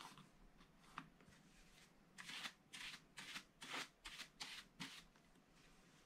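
A light click as the wooden scratch stylus is set down, another a second later, then about seven quick swishes of a dry flat paintbrush sweeping over the scratch-art paper to clear away the scratched-off flakes.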